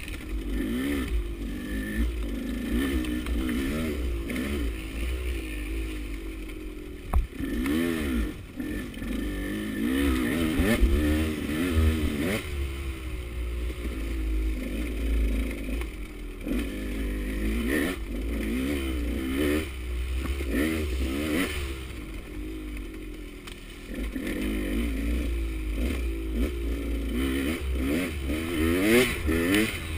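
KTM 200 two-stroke enduro bike engine revving up and down repeatedly as it is ridden through the woods, with a sharp knock about seven seconds in.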